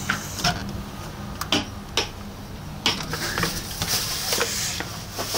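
A door being opened and walked through: a run of sharp clicks and knocks, with a rustle partway through.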